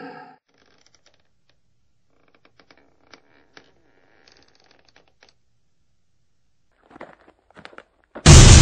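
Faint scattered scratching and small ticks, then a sudden very loud impact near the end, with a ringing decay.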